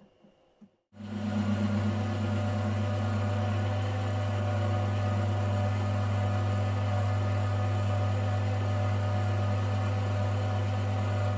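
Mini lathe running at a steady speed, a constant motor hum with a strong low drone and many steady overtones that starts abruptly about a second in.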